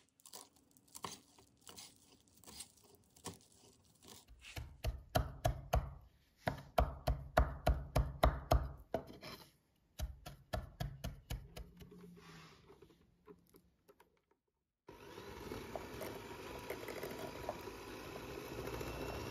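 A chef's knife chopping fresh herbs on a cutting board: light slices at first, then fast, hard chops several a second, easing off again. About fifteen seconds in this gives way to the steady hum of an electric hand mixer beating softened butter in a glass bowl.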